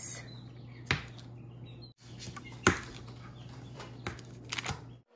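Kitchen knife cutting cold butter into pieces on a paper wrapper over a stone countertop: a few sharp knocks as the blade strikes the counter, the loudest about two and a half seconds in, over a low steady hum.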